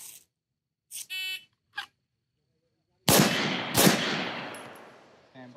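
An electronic shot-timer beep about a second in, then a handgun fired twice in quick succession, a double, about three seconds in, the two shots under a second apart with a long echo trailing off.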